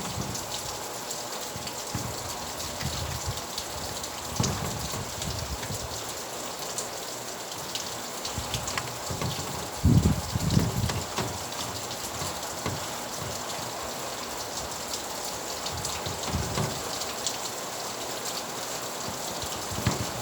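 Steady rain falling, with the patter of drops on surfaces. A few brief low thuds stand out, the loudest about halfway through.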